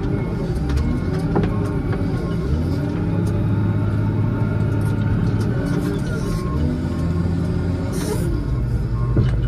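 Case 621E wheel loader's diesel engine running under load, heard from the cab, its pitch rising and falling as the machine drives and pushes snow. A few short clicks and knocks, with a louder noisy burst near the end.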